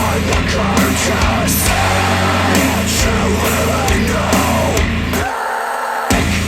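Heavy rock music with distorted electric guitar and drums, played back through Polk Audio Reserve R200 speakers. Near the end the bass and the top end drop out for under a second before the full band comes back.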